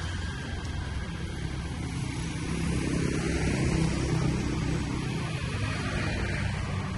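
An engine running with a steady low hum that swells to its loudest about halfway through, then eases off.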